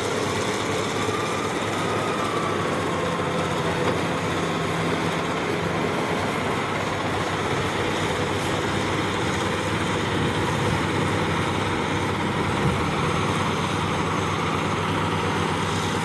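Diesel engines of motor scrapers running steadily under load while the scrapers cut and load earth: a continuous heavy engine noise with no breaks.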